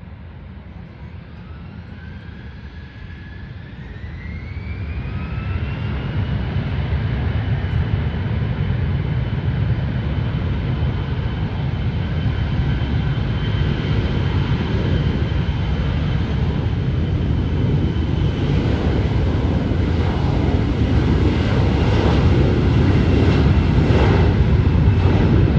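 Jet airliner's engines spooling up: a whine rises in pitch over the first few seconds, then holds steady while the engine noise keeps growing louder.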